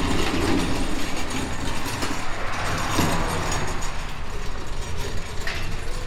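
Steady mechanical clatter of tools working on metal, with a couple of sharper knocks about halfway and near the end, over a low hum.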